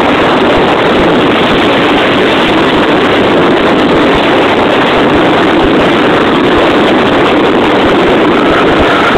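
Mazda RX-8's two-rotor rotary engine running hard, heard from inside the car as a loud, steady, distorted din with no break.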